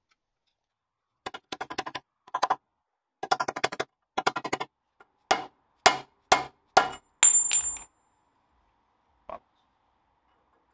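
Mallet tapping an oil seal into the end of a Land Rover Series 2 front axle casing: several short runs of quick light taps, then single harder blows about half a second apart, one of them leaving a brief high metallic ring. A last faint knock comes near the end.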